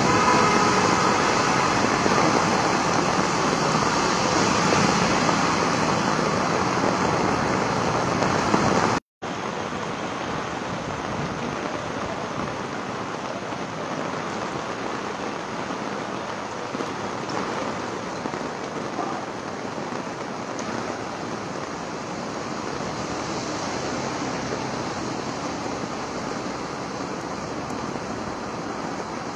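Heavy rain falling on a wet road, a steady hiss, with a car's tyres swishing through the water in the first few seconds. The sound cuts out for a moment about nine seconds in, then the rain carries on a little quieter.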